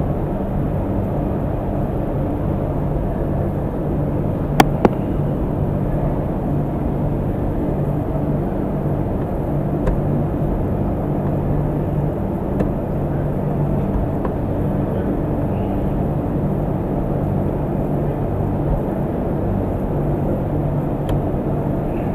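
Steady low hum of an engine running, with one sharp click about four and a half seconds in and a few faint ticks later.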